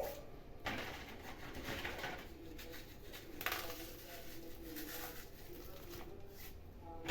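Petit Beurre biscuits being snapped and crumbled by hand into a bowl of chocolate mixture: a few separate crunchy breaks, the sharpest about a second and three and a half seconds in.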